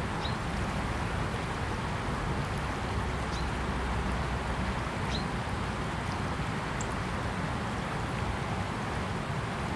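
Small river's current rushing and rippling past a reedy bank, a steady even noise, with a few short faint high chirps scattered through it.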